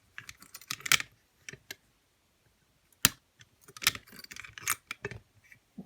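A key turning in a lever lock, with a string of sharp metallic clicks and clacks as the levers lift and the bolt throws to locked.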